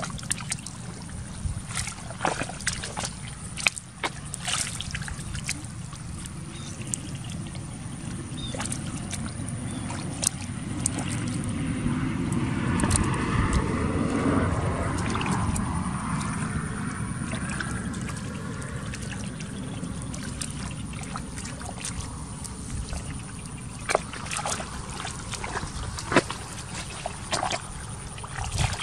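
Sloshing and splashing in shallow muddy water as hands and feet work through the mud, with many small sharp splashes and a louder stretch of sloshing about halfway through.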